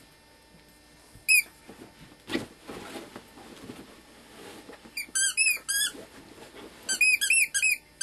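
Squeaky dog toy squeaking as a dog chews it: one squeak, then two quick runs of about five squeaks each in the second half. Each squeak rises and falls in pitch. A soft thump comes a little over two seconds in.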